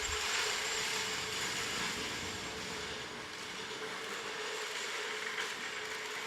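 Steady mechanical running noise with a constant low hum underneath, easing slightly over the few seconds.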